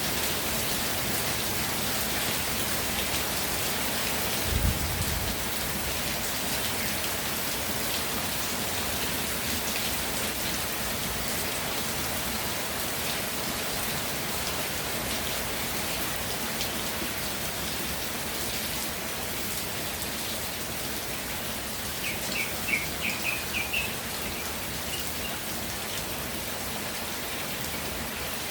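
Steady rain falling, with a dense patter of individual drops. There is a brief low thump about four and a half seconds in, and a bird gives a quick run of high chirps about two-thirds of the way through.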